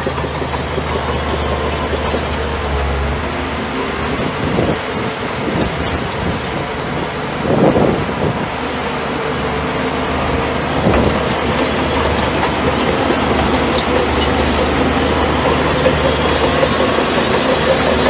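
Bulldozer diesel engine running steadily under work, with a few brief louder bursts in the first half.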